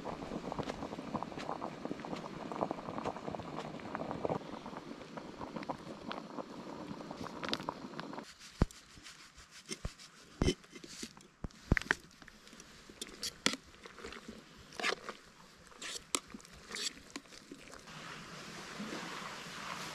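A steady rushing noise, then a series of sharp clicks, knocks and rustles from camp cookware being handled: dry pasta shaken from a foil pouch into a metal pot, and metal mugs set down and moved.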